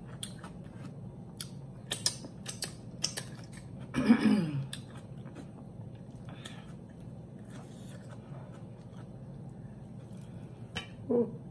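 Close-miked eating sounds: wet mouth clicks and lip-smacking while chewing and licking fingers. About four seconds in comes a short hum of the voice falling in pitch, and near the end another brief one.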